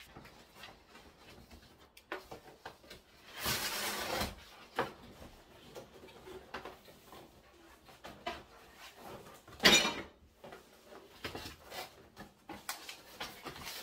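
A cardboard appliance box being opened by hand: flaps and packing card rustling, scraping and knocking, with a longer rustle about three and a half seconds in and a sharper, louder scrape near ten seconds.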